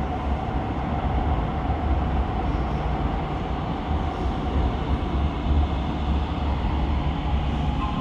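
Type B metro train running, a steady low rumble with a faint whine that fades over the first few seconds.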